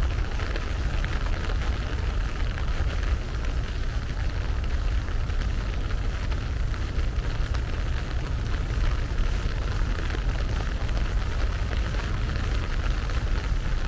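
Steady rain falling and pattering on wet surfaces, with a constant low rumble underneath.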